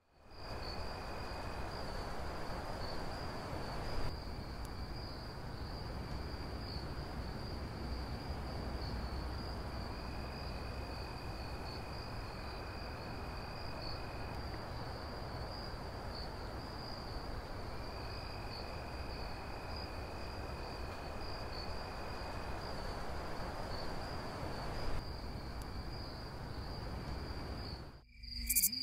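Night-time insect ambience: crickets chirping in a steady, fast high trill, with a second, lower trill coming and going, over a soft, even background hiss. It cuts out just before the end.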